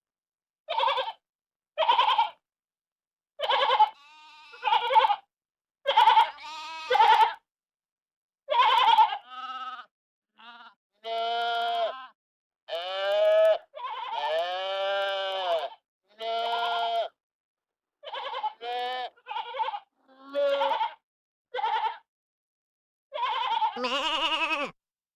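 Sheep and lambs bleating: a string of separate bleats with silence between them, short sharp ones in the first half, then longer, drawn-out bleats with a wavering pitch.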